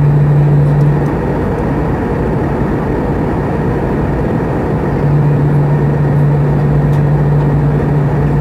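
Airbus A320 jet engine and airflow noise heard inside the cabin at altitude, a loud steady rush with a low steady hum. The hum drops out about a second in and comes back about five seconds in.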